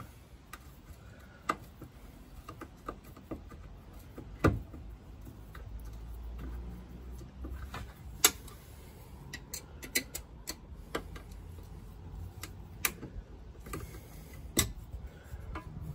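Scattered sharp clicks and taps of screws and small hinge hardware being handled and fitted to a car's fuel door, about a dozen in all, with a quick cluster about ten seconds in.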